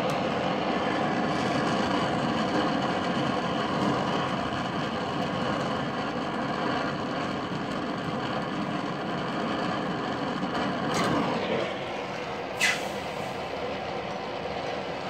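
Brazing torch flame running steadily, heating the refrigerant line joints to unsweat them from the refrigerator compressor. The sound thins out near the end and a short high squeak follows.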